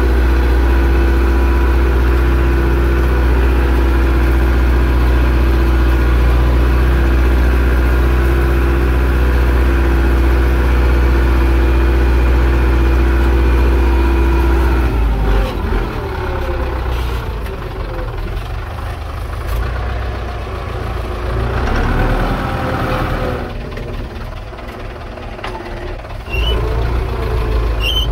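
Zetor 6245 tractor's four-cylinder diesel engine running steadily and loudly under load. About halfway through the sound drops in level and turns uneven, with the pitch wandering up and down.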